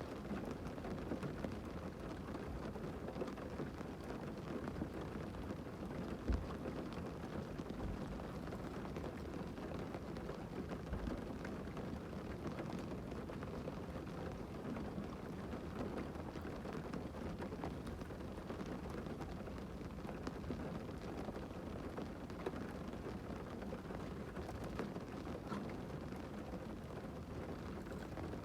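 Heavy rain falling on a parked car, heard from inside the cabin as a steady low hiss. One short dull thump about six seconds in.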